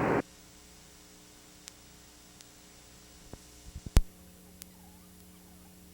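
Outdoor wind and traffic noise cuts off abruptly as the recording stops, leaving a faint steady electrical hum with a few scattered clicks. About four seconds in, a short cluster of knocks ends in one sharp click.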